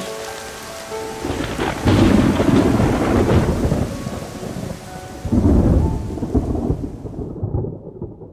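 Steady rain with two long rolls of thunder, the first about two seconds in and the second about five seconds in. The storm dies away near the end.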